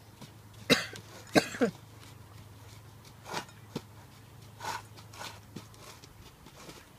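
Small ceramic ramekin pressing and tapping an Oreo crumb crust into a metal springform pan: a handful of short knocks and scrapes, the two loudest about a second in.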